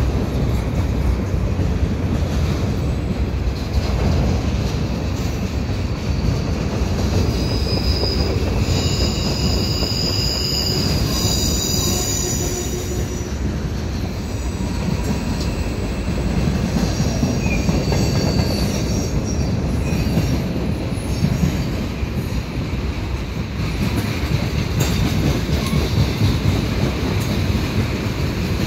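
Freight cars of a long mixed train rolling steadily through a curving crossover, a constant low rumble of wheels on rail with high-pitched wheel squeal that comes and goes, strongest from a few seconds in to about halfway and again briefly after that.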